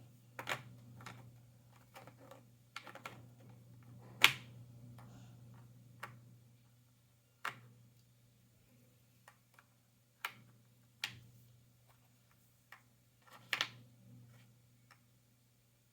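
Jigsaw puzzle pieces being handled and pressed into place: irregular light clicks and taps, a dozen or so, with one sharper knock a little past four seconds, over a faint steady hum.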